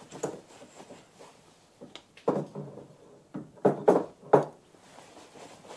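Short hollow knocks from the old Karger lathe's chuck and a steel bar levered in its jaw: one at the start, one about two seconds in, then three in quick succession about four seconds in.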